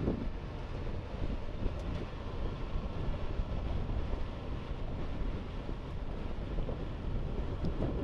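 Ultra Heavy-Lift Amphibious Connector prototype moving on its tracks of flotation pads, the tracks running over the front sprocket and the vehicle's machinery making a steady, heavy rumble.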